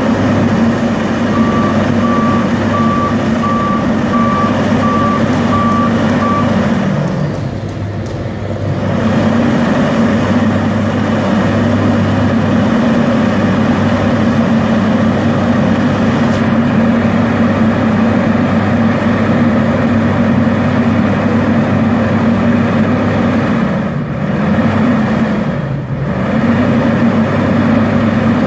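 Vögele Super 1803-3i asphalt paver's diesel engine running steadily. A warning beeper sounds a run of evenly spaced beeps starting about a second in and lasting about five seconds. The engine note drops briefly around eight seconds in and twice more near the end.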